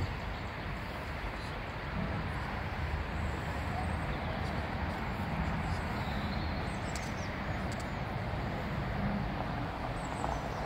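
Steady outdoor background noise, an even rumble and hiss, with a few faint high chirps partway through.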